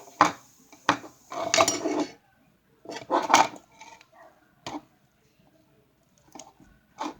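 A spoon knocking and scraping against a mixing bowl in short, irregular bursts, with quiet gaps between.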